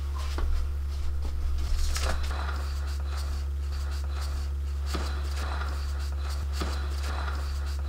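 A steady low electrical hum, with a few soft knocks and rustles as the cake board is turned by hand on a cake turntable.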